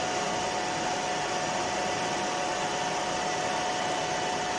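Milling machine running steadily: an even whirring hiss with a constant tone through it.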